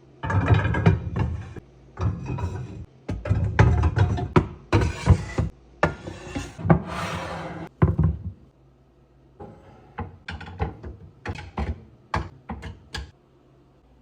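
Pots, pans and lids being handled and put away, clattering and knocking in quick succession, then a few lighter, separate clicks and knocks near the end.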